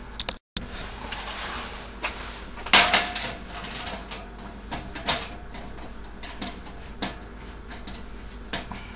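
Screwdriver tightening the shoulder bolts of a generator interlock plate on a steel Square D breaker panel cover: scattered metal clicks and scrapes, loudest in a clatter about three seconds in.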